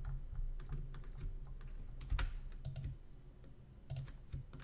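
Irregular clicking of a computer keyboard and mouse, a few clicks a second, each with a soft thud on the desk. The clicking eases off briefly past the middle.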